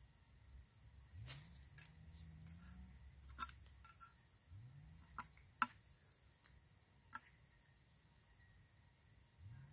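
Insects droning in a steady high-pitched tone, with a handful of sharp clicks and knocks over it, the loudest a little past halfway.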